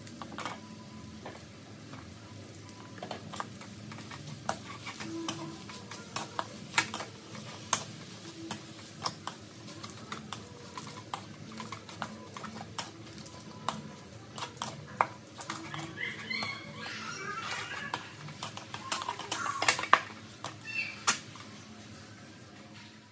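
Wooden spatula scraping and knocking against a metal wok while stir-frying noodles with mushrooms and greens, a steady run of sharp clicks and scrapes.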